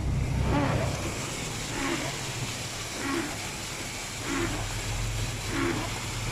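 Steady hiss of rain over a vehicle's engine hum. A short sound repeats evenly about every second and a quarter.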